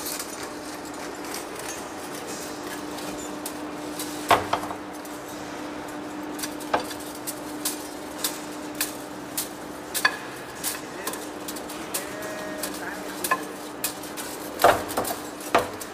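Heavy-duty face lathe running with a steady hum, with irregular sharp metallic clinks and knocks over it; the loudest come about four seconds in and near the end.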